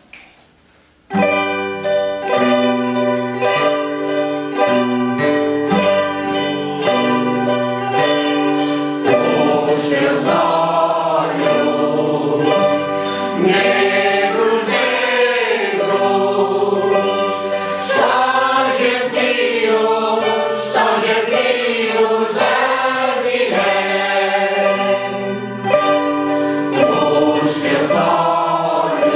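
A small ensemble of mandolins and guitars starts strumming chords about a second in. A choir joins in singing about nine seconds in.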